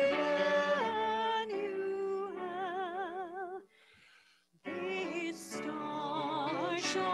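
A high voice sings long held notes with wide vibrato. It stops briefly about four seconds in, then goes on.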